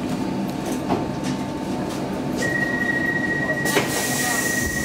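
Stockholm C14 metro car coming to a stop at a platform, its running rumble steady underneath. About halfway through, a steady high-pitched beep starts and holds. Near the end a hiss of air comes in.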